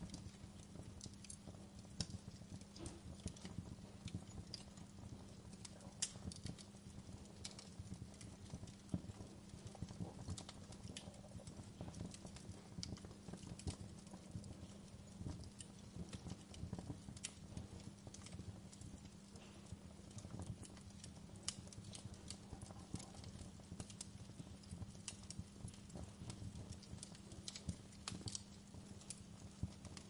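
Wood fire of glowing embers and charred logs crackling, with irregular sharp pops and snaps over a low steady hum.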